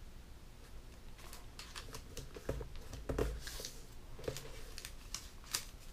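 Sheet of origami paper, folded into a model, rustling and crinkling as it is handled and set down on a paper-covered table: a scattered run of small crackles and ticks, loudest about three seconds in.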